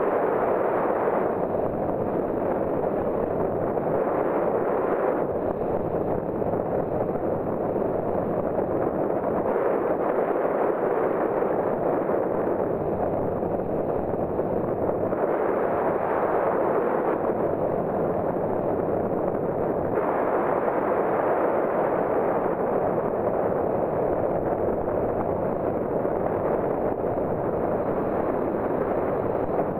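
Wind rushing over the camera microphone of a hang glider in flight: a steady, rough roar of air with no engine or voice, its tone shifting abruptly every few seconds where the flight clips are cut together.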